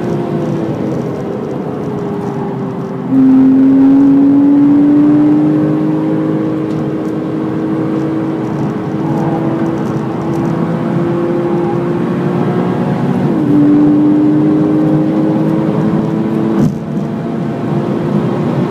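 Porsche Cayman S flat-six engine at full throttle, near 7,000 rpm in third gear, heard from inside the cabin over tyre and road noise. The engine note drops in pitch and gets louder about three seconds in, then climbs slowly. It dips again near thirteen seconds and climbs again, and a short knock near the end is followed by a drop in level.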